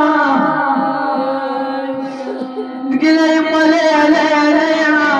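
A woman chanting an Arabic mourning lament (nai) in long held, wavering notes. The chant dips quieter for about a second around the two-second mark and comes back louder at three seconds.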